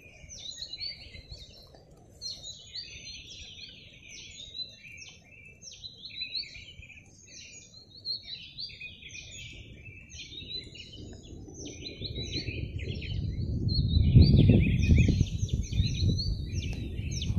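Several birds chirping and singing in a quick, unbroken stream of short notes. From about two-thirds of the way through, a low rumbling noise builds under the birdsong and becomes the loudest sound near the end.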